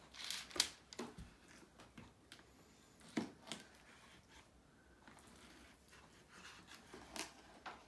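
Kitchen knife cutting through a raw eel fillet against a cutting board: a few soft scrapes and short knocks of the blade on the board.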